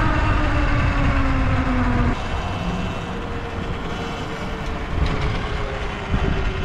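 Electric dirt bike riding, its motor giving a thin whine over heavy wind rumble on the microphone. The whine sinks a little as the bike slows, the sound drops abruptly about two seconds in, and then a higher, steady whine carries on.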